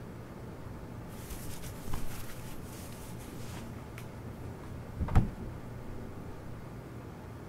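Handling sounds in a small room over a steady low hum: light rustling with a couple of small clicks, then a single dull thump about five seconds in.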